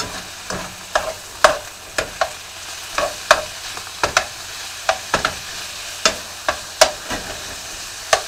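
A slotted spoon scraping and knocking against a nonstick fry pan as chunks of chicken are stirred, about two strokes a second, over the steady sizzle of the chicken frying in oil.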